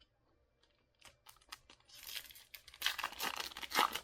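Foil wrapper of a Bowman baseball card pack crinkling and tearing as it is opened, starting about halfway through and loudest near the end, after a few light ticks of cards being handled.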